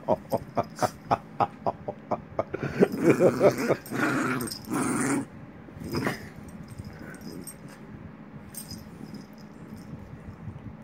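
Maltese puppy growling in play: a quick run of short growls about three a second, then a longer, louder growl about three seconds in. After about five seconds it settles into faint rustling of fur and bedding.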